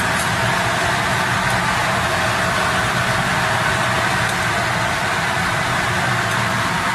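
Steady, loud rushing hiss of steam flowing through a steam heating system, with a faint steady whistle-like tone over it.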